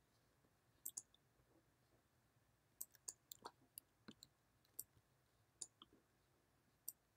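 Near silence with a dozen or so faint, short clicks scattered irregularly, several close together about three seconds in.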